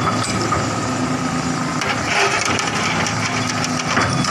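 Excavator's diesel engine running steadily. From about two seconds in, a run of short knocks and cracks, likely from the bucket and steel at work against the barge and bank.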